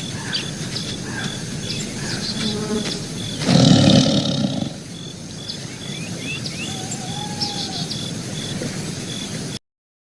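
Tiger roaring once, a loud growling roar lasting just over a second about a third of the way in, over jungle ambience of birds chirping and a steady high pulsing call. The sound cuts off suddenly near the end.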